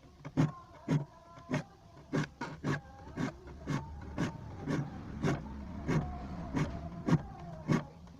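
Hand saw's steel teeth being worked one by one with short, sharp strokes, about two a second, each making the thin steel blade ring briefly.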